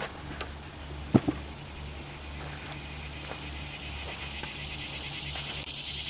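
A small engine running steadily at idle, a low hum, with two sharp knocks close together about a second in. A high buzzing grows louder near the end.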